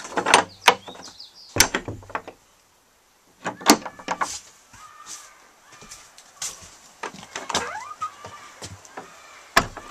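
Wooden chicken coop door being closed carefully: a few knocks and latch clicks in the first two seconds. The sound then drops out for about a second, followed by scattered knocks and faint rustling.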